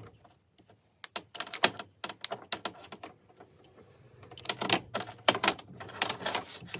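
Irregular sharp clicks and small rattles from hands working on the opened circular saw's wiring and housing as a wire connector is pulled off its terminal, with a dense run of clicks in the second half.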